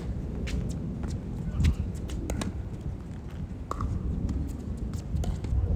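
Tennis ball struck by a racket on a serve, then a short rally of sharp separate ball hits and bounces on a hard court, over a steady low rumble.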